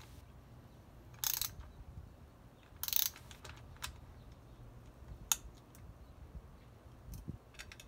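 Socket ratchet working the bolts of an AP Racing two-piece brake rotor: two short bursts of rapid pawl clicking about a second and three seconds in, then a few single metallic clicks.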